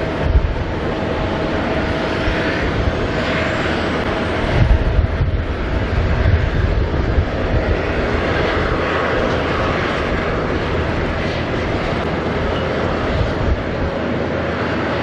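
Jet airliner engine noise, a steady rush with a constant whine, over a gusty low rumble that swells in the middle.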